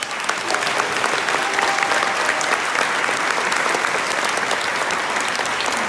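An audience clapping: dense, steady applause that swells up at the very start and stays level.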